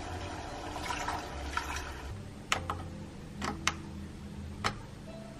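Water poured from a glass into a pot, then a handful of sharp clicks as the buttons of an illy capsule coffee machine are pressed again and again, over a low steady hum. The machine is not responding to the presses.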